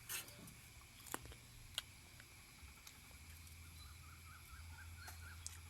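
Near silence with a few faint clicks from biting into and chewing a karanda fruit; later a faint run of short high pips.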